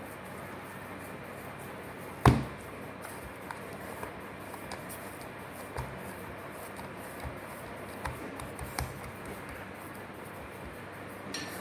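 Soft paratha dough being kneaded and pressed by oiled hands in a bowl: quiet squishing and handling noises, with one loud thump about two seconds in and a few lighter knocks later.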